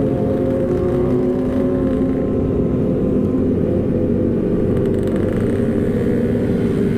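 Sport motorcycle engine heard from the rider's seat, running steadily at low road speed with an even note that holds its pitch.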